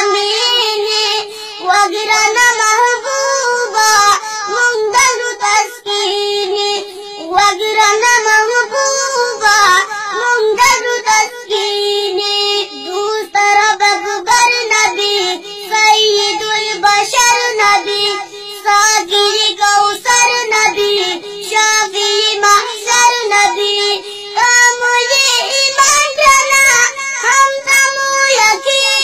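A young child singing a Pashto nazam in a high voice, phrase after phrase.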